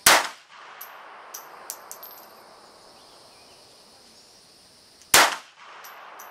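Two pistol shots about five seconds apart, each followed by a fading echo. After each shot come a few light metallic pings as the ejected brass casing lands and bounces.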